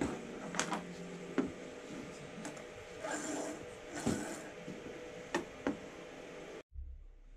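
Clicks, taps and short scrapes as a white slider is worked along a black track and the track is handled and set on a fibreglass-covered model yacht deck. The sound drops to quieter room tone near the end.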